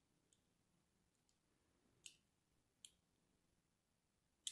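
Bar of soap being scored with a fine cutter: four faint, sharp, crisp clicks spaced out, the loudest near the end.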